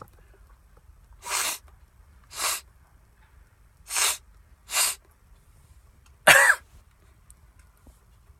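A man sneezing five times into a paper towel: four short, sharp, breathy sneezes about a second apart, then a louder voiced one about six seconds in.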